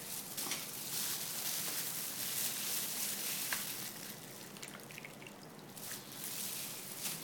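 Brine dripping and trickling back into a plastic bowl as gloved hands squeeze the liquid out of shredded jellyfish and vegetables, with wet squishing, easing off for a moment about five seconds in.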